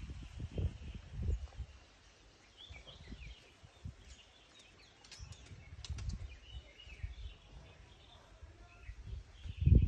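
Birds chirping now and then over outdoor ambience, with irregular low rumbles on the microphone.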